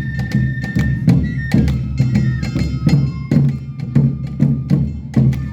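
Awa odori festival music: drums and clacking percussion beating a steady rhythm, with a high flute-like melody held above.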